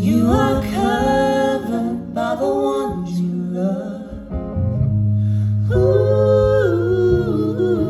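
Live song: female voices singing in harmony over a sustained electric guitar accompaniment.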